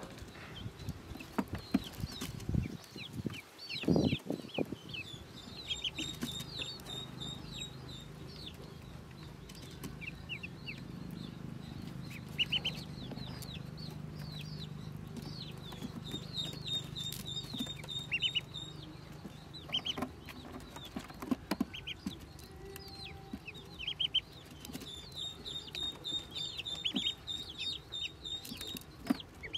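Newborn Pekin ducklings peeping: many short, high, downward-sliding peeps, often in quick runs. A few dull knocks come in the first few seconds, the loudest about four seconds in, and a faint low hum runs under the middle stretch.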